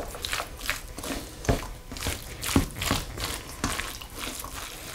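A spatula stirring mayonnaise-dressed shredded chicken in a stainless steel bowl: irregular wet squishing and scraping strokes. The wet sound is a sign that the mix is moist enough.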